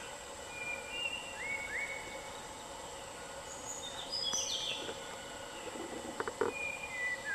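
Forest ambience: birds calling in short whistled notes, some rising, over a steady high insect drone, with a few short sharp snaps about six seconds in.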